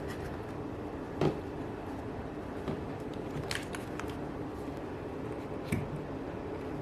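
A few scattered short clicks and soft knocks, about a second and a bit in, again around three and a half seconds and near the end, over a steady low hum.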